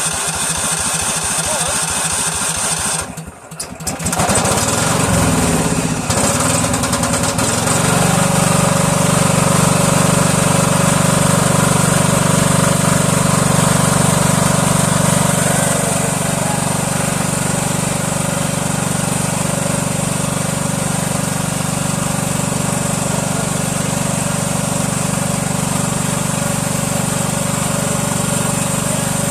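1999 Cub Cadet HDS 2135 riding mower engine running just after its first start of the season. The sound drops out briefly about three seconds in, then the engine settles into a steady, stronger run from about eight seconds on.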